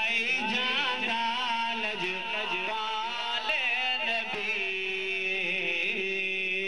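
A man's voice chanting a devotional naat into a microphone through a loudspeaker system, with long ornamented notes that bend up and down and settle into a long held note near the end.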